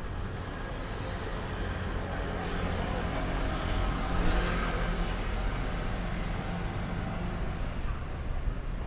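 Street traffic with the steady rumble of engines, as a vehicle passes close and its noise swells to a peak about four seconds in, then eases off.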